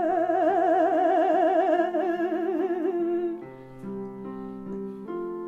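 A singer holds a long note with wide, even vibrato over keyboard accompaniment. About three seconds in the voice stops, and the keyboard plays on alone with held chords.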